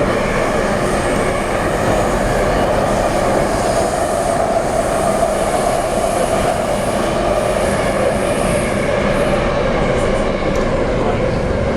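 Underground metro train running between stations, heard from inside the carriage: a steady loud rumble of wheels on rail. A faint high whine rides on top through most of the stretch and fades out near the end.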